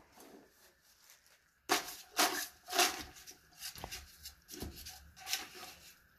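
A screwdriver poking and pushing a wad of wet newspaper down into a toilet bowl to force a clog through: a run of scraping, squishing rustles starting about two seconds in, with a couple of sharp clicks.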